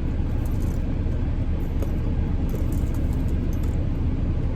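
Steady low rumble of a car cabin with the engine running, with a few faint ticks of small items being handled.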